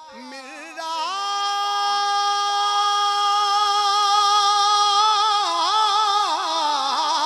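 A man's solo voice singing a naat unaccompanied into a microphone: after a soft start he holds one long steady note for about four seconds, then breaks into wavering melismatic turns.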